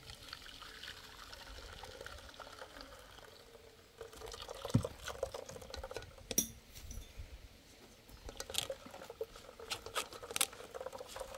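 Liquid pouring and dripping into a container, with small wet splashes and clicks from about four seconds in: blended coconut being squeezed by hand to press out the coconut milk.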